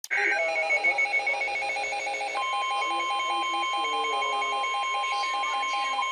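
Emergency Alert System alert tones: a rapidly pulsing two-pitch tone, joined about two seconds in by a second steady tone. These are the attention signal ahead of a special marine warning.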